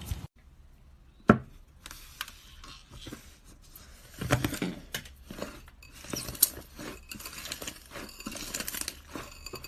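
Slime being worked by hand: scattered sharp clicks and crackling pops, one loud snap about a second in, and denser crackling near the end.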